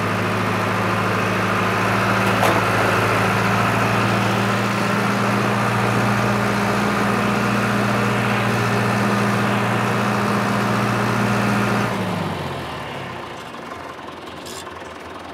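John Deere farm tractor engine running steadily as the tractor drives across a field, then dying away about twelve seconds in.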